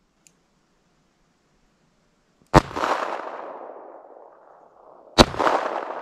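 Two shots from a .22 LR pocket pistol firing CCI Stinger and Mini Mag hollow points, the first about two and a half seconds in and the second about five seconds in. Each sharp report trails off in a long fading echo.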